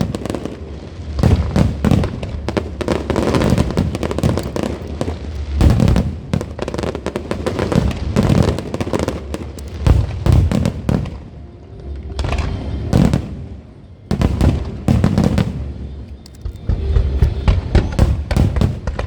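Aerial fireworks display: rapid, overlapping shell bursts and crackling with deep booms, thinning out briefly past the middle and then building again.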